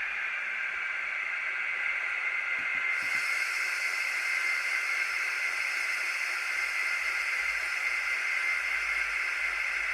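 N gauge Class 56 model locomotive's DCC sound decoder playing its diesel engine sound through a tiny speaker, heard as a steady hissy noise; about three seconds in a higher hiss joins.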